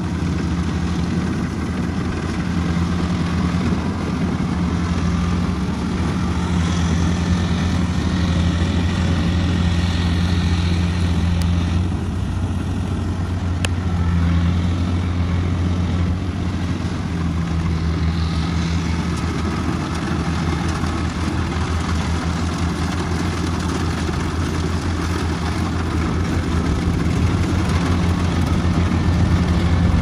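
Kubota rice combine harvester's diesel engine running steadily while it cuts and threshes rice, a constant low hum with machinery noise over it.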